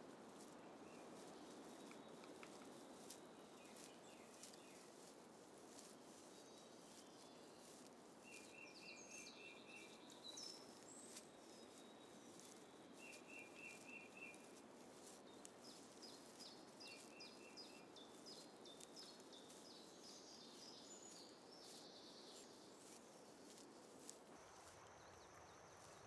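Faint woodland ambience: a soft steady hush with birds calling, including a short rapid trill repeated three times and scattered higher chirps, plus faint scattered ticks.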